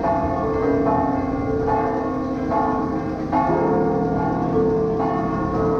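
Large church bells of a basilica ringing in a pealing pattern, a fresh stroke about every second with the tones of several bells overlapping and ringing on.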